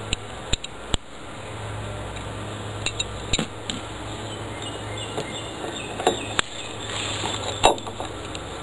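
Scattered sharp metallic clicks and clinks, about seven in all, as a screw, a screwdriver and a steel plant hook knock together while the screw is started into the hook's mounting plate, over a steady low hum.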